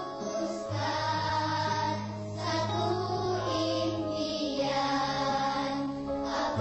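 Slow background music with held notes changing every second or two over a steady low bass note, and a choir-like sung voice.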